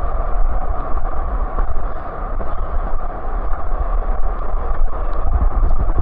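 Waterfall plunging into a pool: a loud, steady roar of falling water with a deep rumble underneath.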